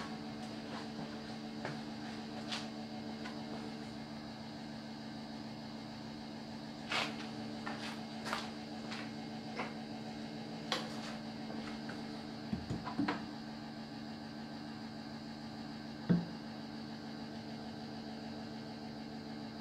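A few sharp clicks and knocks from hands working in a VW Beetle's engine bay around the carburetor linkage, the loudest knock about sixteen seconds in, over a steady low hum.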